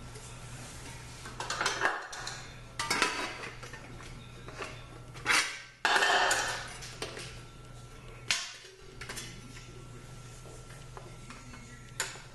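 A metal piece clanking and scraping while being trimmed with hand cutters: about five sharp clatters in the first nine seconds, then quieter.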